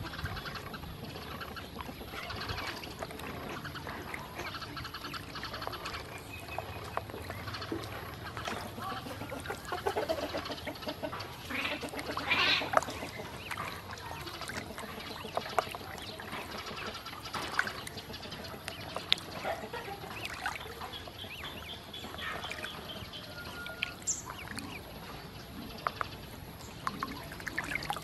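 A group of ducklings peeping while they paddle and dabble in a shallow plastic basin, with water splashing and lapping. The peeps are short, high and scattered over a steady wash of small splashes.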